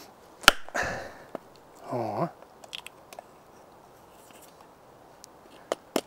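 Wooden baton striking the spine of a fixed-blade knife driven into the side of a log round: one sharp knock about half a second in, followed by a brief crackle as a piece of wood splits off. A few light ticks follow, then two more knocks near the end.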